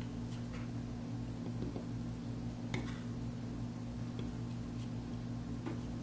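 Hard-alloy seal engraving knife cutting into a soapstone seal: sparse, short scratchy clicks and scrapes as the blade chips the stone, the loudest a little before halfway, over a steady low hum.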